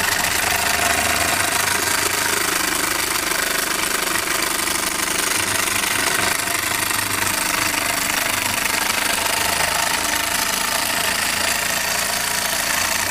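Jensen 60 toy steam engine running steadily under steam: a rapid, even mechanical rhythm over a constant hiss.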